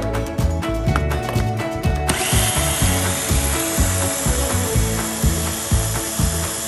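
Background music with a steady beat. About two seconds in, an electric blender starts grinding the peanut-sauce ingredients with a steady, even noise and keeps running.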